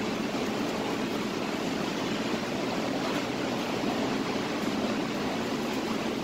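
Steady, even noise of a commercial kitchen exhaust hood's ventilation fan running.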